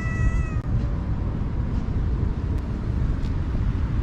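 A cat meowing once, a single drawn-out meow that ends in the first half second, over a steady low rumble.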